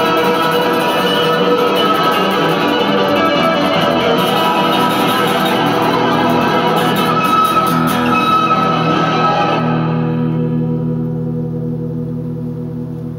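Electric guitar played through a DigiTech JamMan looper pedal: a busy improvised line over a looped rhythm part. About ten seconds in the playing stops and a low chord is left ringing, slowly fading.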